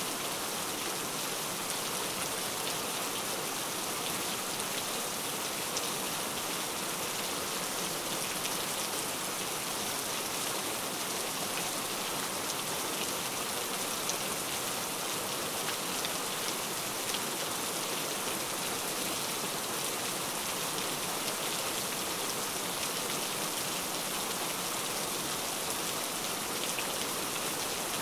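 Steady rain falling: an even hiss with a fine patter of drops, unchanging throughout.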